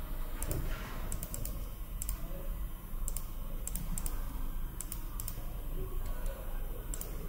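Scattered clicks from a computer mouse and keyboard, about a dozen single clicks at irregular intervals, over a steady low hum of room noise.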